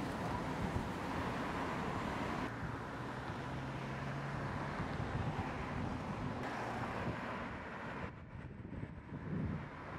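Street ambience of car traffic, a steady noisy rumble that changes abruptly a few times, about two and a half, six and a half and eight seconds in, and is quieter near the end.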